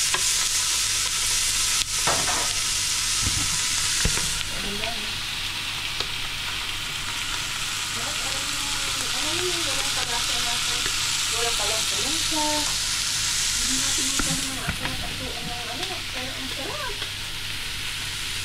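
Whole fish sizzling on a hot griddle plate: a steady frying hiss, stronger for the first few seconds and again briefly past the middle. There are a couple of light knocks in the first few seconds.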